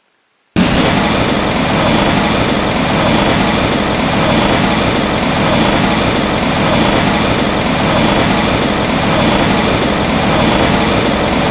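Dragon sound effect: a loud, steady rushing noise that starts suddenly about half a second in and holds level without pauses or rhythm.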